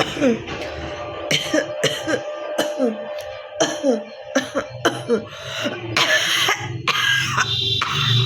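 A woman coughing over and over, short hacking coughs with some throat clearing. The coughs are put on for a coughing challenge, not from a real cold.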